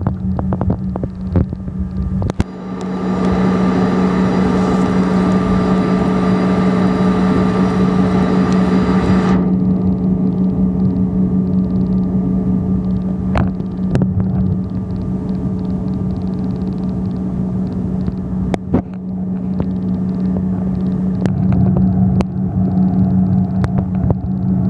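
Airliner cabin noise while taxiing on the ground: a steady jet-engine hum with a constant low drone. A louder rushing hiss joins about three seconds in and cuts off suddenly near ten seconds in, with a few sharp clicks scattered through.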